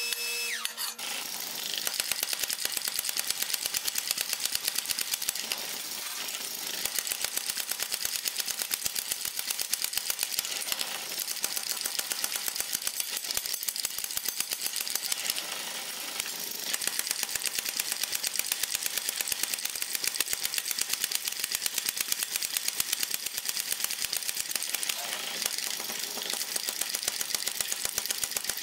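Power hammer rapidly pounding red-hot flat steel bar stock, an even run of blows several times a second with a few brief lulls.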